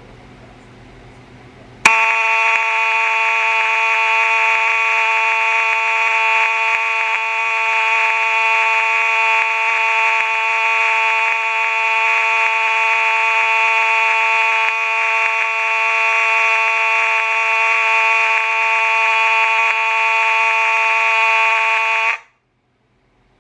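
Second-generation Simplex 4903-9202 fire alarm horn/strobe sounding a loud, steady, continuous buzzing horn tone. It starts abruptly about two seconds in and cuts off suddenly near the end.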